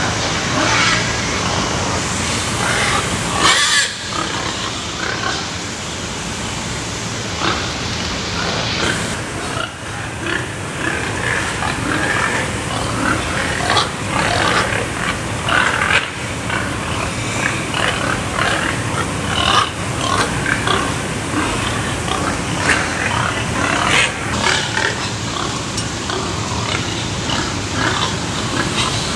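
Many pigs grunting and squealing together in a pig pen, a continuous clamour of overlapping calls with a few sharp knocks.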